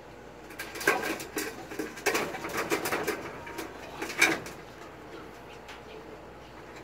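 Racing pigeons cooing, mixed with close clicks and rustles of hands handling a pigeon near the microphone; the sounds die down about four and a half seconds in.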